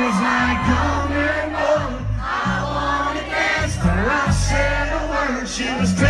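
Loud live country band playing, with singing over a pulsing bass and drums and a large crowd joining in.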